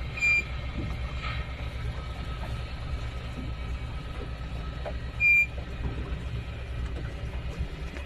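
Steady low engine rumble from a vehicle or boat, broken twice by a short high beep about five seconds apart.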